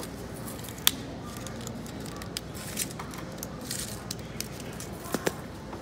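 Faint rustling and a few sharp clicks of handling, the loudest about a second in and a close pair near the end.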